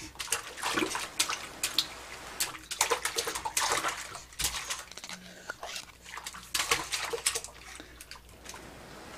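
A baby's hands splashing and slapping the foamy water of a shallow inflatable baby bathtub, in irregular splashes that die down near the end.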